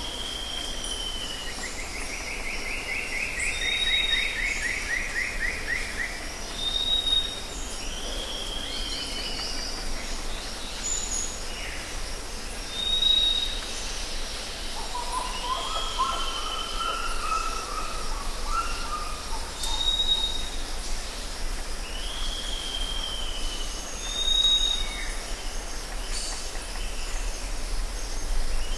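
Several forest birds calling. One bird repeats a short high whistle every few seconds, others answer with falling whistles, a long descending trill comes near the start and a lower warbling phrase about midway, all over a steady high hiss.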